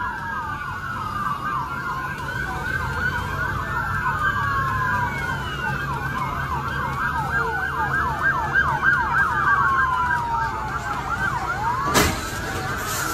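Several police sirens wailing and yelping at once, their rising and falling pitches overlapping, over a low engine rumble. A sharp thump about twelve seconds in.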